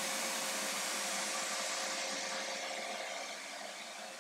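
Shop vacuum motor running steadily with a constant whine, fading gradually toward the end.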